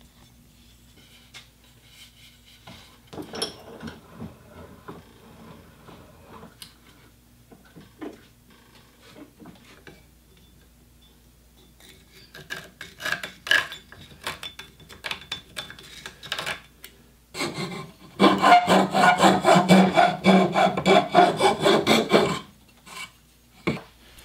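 Scattered knocks and handling sounds, then a steel file or rasp worked in rapid, loud strokes across a wooden axe handle clamped in a vise for about five seconds, starting around two-thirds of the way in. The handle is being thinned down.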